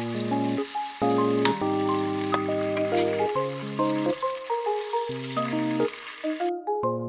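Tofu cubes sizzling in a pan of chilli sauce while chopsticks turn them. The sizzle cuts off suddenly near the end. Background music with a light melody of notes plays throughout.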